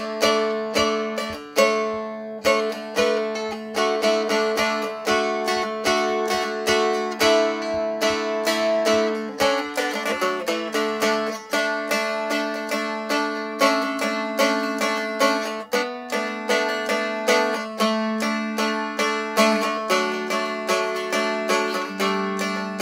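Handmade mahogany strumstick (three-string stick dulcimer) strummed in a quick, steady rhythm. A changing melody rings over steady open drone strings tuned D-A-D.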